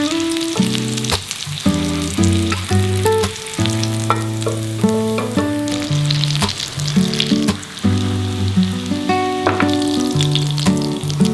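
Food frying in a pan, sizzling and crackling steadily, with plucked-string background music playing over it.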